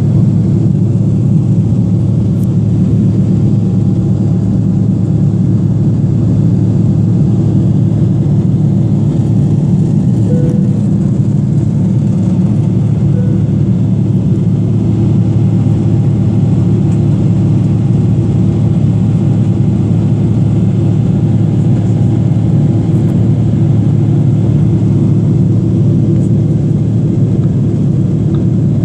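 Steady, even roar of a Boeing 777-300ER's GE90-115B turbofan engines and rushing air, heard inside the passenger cabin at a window seat in flight.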